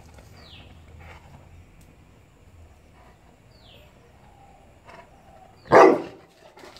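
Bullmastiff gives a single short, loud bark near the end. Before it, two brief falling bird chirps sound over a quiet background.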